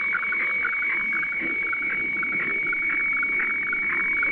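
HF radiofax weather-chart transmission received in upper sideband on a Sangean ATS-909X shortwave receiver and heard through its speaker: a steady high tone with a rapid, irregular warble just below it as the picture lines are sent.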